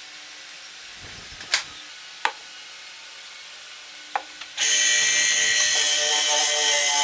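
A few sharp wooden knocks as parts are handled on the bench, then about four and a half seconds in the motor of a home-made spindle (drum) sander switches on and runs with a loud, steady whine.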